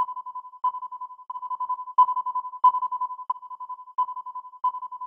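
An electronic beep at one steady pitch, fluttering rapidly and restarting with a click about every two-thirds of a second.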